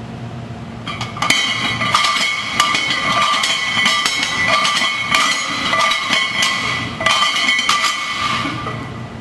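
Loaded barbell clanking as it is rowed, irregular metal knocks over a steady high whistling tone. Both start about a second in and die away near the end.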